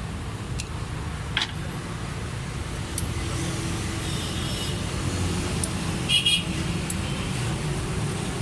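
Suzuki Cultus EFI engine running at a steady idle, with a few short metallic clinks over it. The mechanic puts the engine's noise down to loose tappets.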